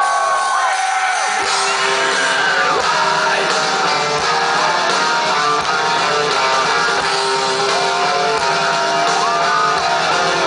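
Live rock band playing loud with electric guitars. A high guitar line plays alone at first, then drums and bass come in about a second and a half in.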